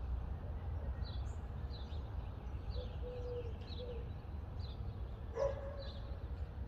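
Outdoor ambience: small birds chirping again and again over a steady low rumble, with a few short, lower-pitched animal calls, the clearest about five seconds in.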